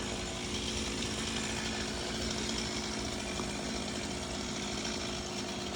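Two-stroke chainsaw engine running at a steady speed.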